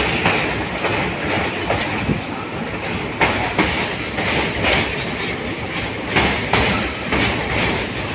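Passenger train running at speed, heard from inside a carriage: a steady rumble of wheels on rails with irregular clacks as the wheels pass over rail joints.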